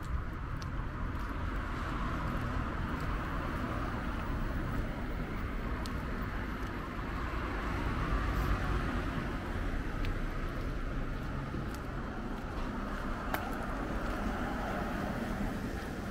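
Steady city street traffic noise from cars on a nearby road, with a low rumble and a slight swell about halfway through.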